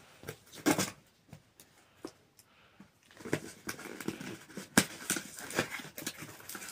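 Small cardboard parcel box being opened by hand: a few scrapes and a snap about a second in as the tape is cut, then cardboard and packing tape crinkling, tearing and rustling from about three seconds on, with one sharp click near the middle of that.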